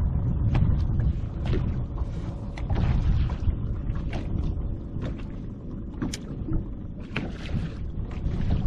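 Wind rumbling on the microphone over water lapping against a bass boat's hull, with scattered light clicks and a faint steady hum.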